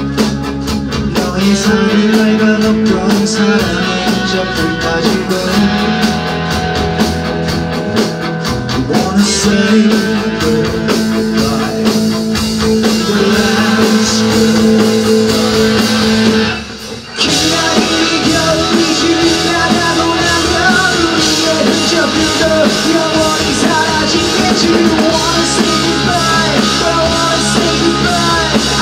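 Live rock band playing electric guitars and a drum kit, with a male singer. The music breaks off for a moment a little past halfway, then the full band comes back in.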